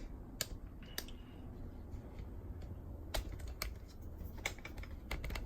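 Light, irregular plastic clicks and taps from hands handling the opened Pioneer SK-750 boombox's cassette deck, with some ten separate ticks over a faint low background.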